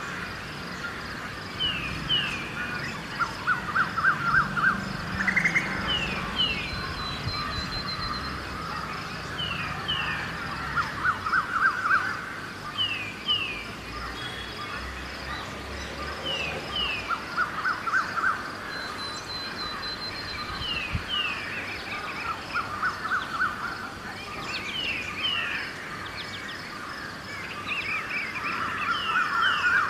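Dawn birdsong. One bird repeats a pair of short, high, down-slurred notes every two seconds or so, while bursts of rapid, lower repeated calls come every few seconds, over a faint steady hum of distant city traffic.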